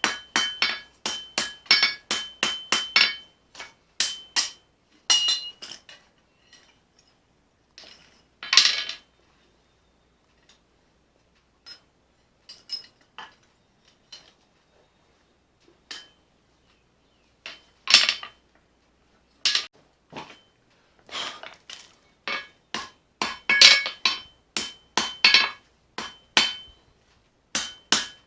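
Hammer striking hot leaf-spring steel on an anvil, in runs of quick blows about three a second with pauses of lighter taps between, the anvil ringing on the harder strikes. A single longer scraping sound comes about a third of the way in.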